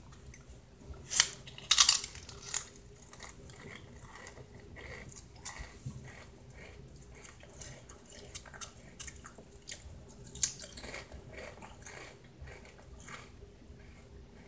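Pringles Chile con Queso crisps crunching as they are snapped and chewed. The loudest sharp crunches come about one and two seconds in, then quieter chewing with another crunchy burst near the ten-second mark.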